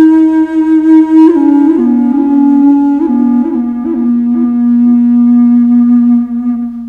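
Background music: a slow solo melody played one note at a time, settling on a long held note that fades out near the end.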